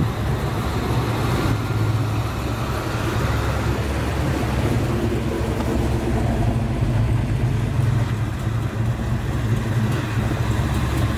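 Classic American car engines running at low speed as the cars cruise slowly past, a steady, deep, low-pitched drone with no revving. The loudest source is a 1970 Plymouth muscle car rolling toward the microphone.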